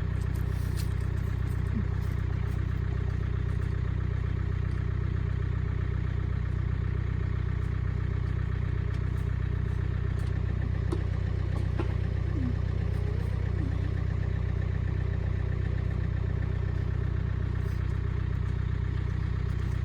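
A vehicle's engine idling steadily, holding an even low pitch without revving.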